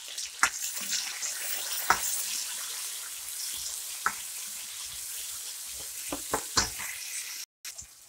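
Sliced tomato, onion and garlic sizzling in hot oil in a wok, with a spatula knocking against the pan now and then as it stirs. The sizzle drops away sharply near the end.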